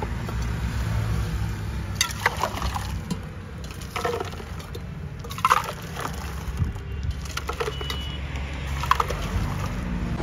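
Lemon soda being poured from a height between stainless steel pots, liquid splashing, with several sharp clinks of the steel vessels.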